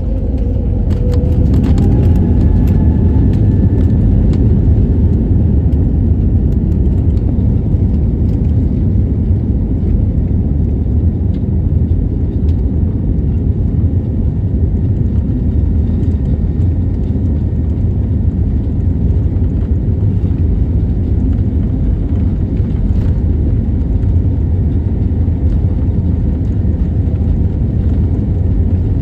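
Airliner taking off: a loud, steady rumble of engines and rolling noise, with a faint whine rising in pitch during the first few seconds.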